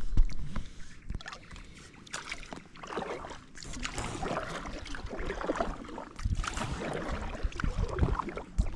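Water splashing and dripping around an inflatable kayak as the paddle works the water, with many small clicks and knocks. A sharper knock comes right at the start.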